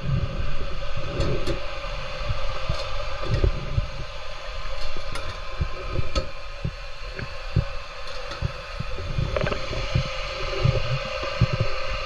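Muffled underwater noise picked up by a submerged GoPro: irregular low thumps and knocks from a swimmer moving and handling wire ring structures on a silty pond bottom, over a steady faint hum.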